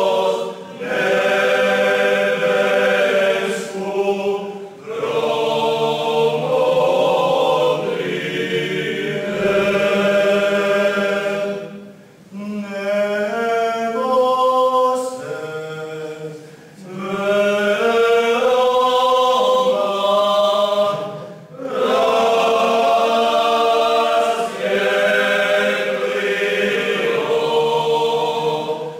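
Male vocal group singing a cappella, men's voices together in long sung phrases with short breaths between them every few seconds.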